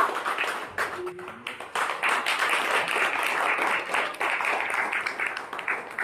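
Small audience applauding, many hands clapping quickly and unevenly, thinning briefly about a second in.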